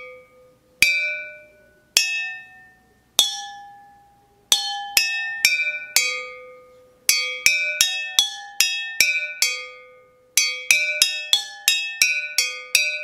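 Four glass jars holding different amounts of water struck with a metal spoon, each strike ringing a clear note that fades. The fullest jar gives the lowest note and the emptiest the highest. A few single strikes spaced about a second apart are followed by a quick run of notes tapped out several times a second.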